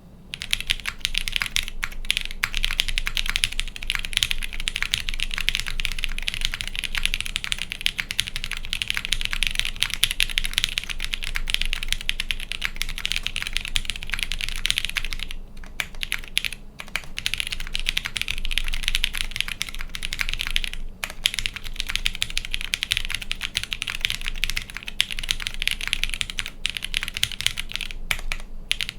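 Fast, continuous typing on a mechanical keyboard with tactile Cherry MX Hyperglide Brown switches on Kailh Brown stems, GMK keycaps and an O-ring-mounted aluminium half plate with no sound dampening. The typing starts about half a second in and pauses briefly a few times.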